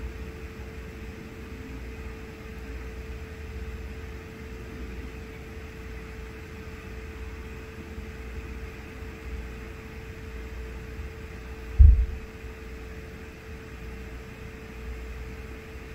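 Steady mechanical room hum with a constant low tone and a low rumble, broken by one brief low thump about twelve seconds in.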